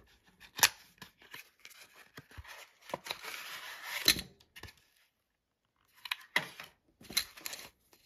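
Paperboard box being opened by hand: sharp clicks and card rubbing as the flap is worked open, then a scraping rustle about three seconds in as a fabric pouch is slid out of the box, ending in a sharp click. A few more clicks follow after a brief pause.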